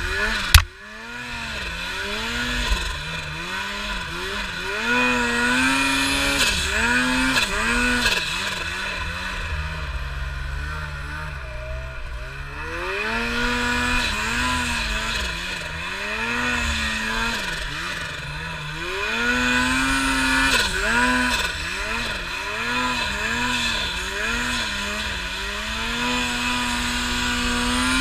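Polaris snowmobile engine revving up and down over and over as the sled is ridden through deep snow, its pitch rising and falling with each burst of throttle. A single sharp knock about half a second in.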